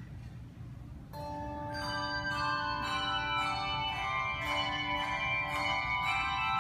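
Handbell choir playing: the first chord is struck about a second in, then ringing chords follow with new strikes about twice a second, the bells' notes held and overlapping.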